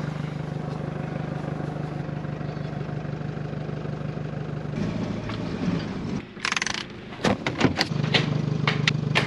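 A vehicle engine running steadily, which drops away about six seconds in. A quick run of sharp clicks and knocks follows near the end.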